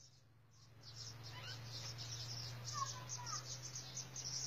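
Faint, rapid high-pitched chirping over a low steady hum, starting about a second in.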